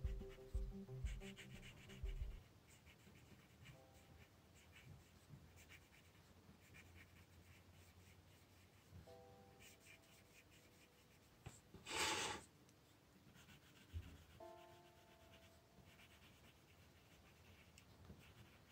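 Faint scratching of a drawing tip on paper in short strokes while zentangle petals are shaded in, over soft background music. One louder, brief noise about twelve seconds in.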